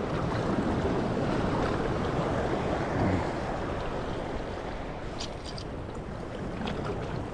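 Sea waves washing against a rocky shore, with wind on the microphone, swelling to its loudest about three seconds in. A few light clicks follow near the end.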